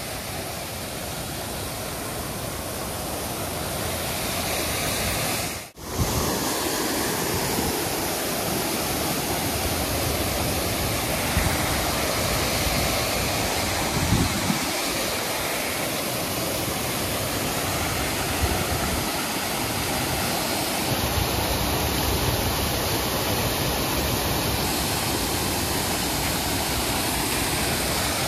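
Water pouring over a waterfall on a city canal, a steady rushing that cuts out briefly about six seconds in.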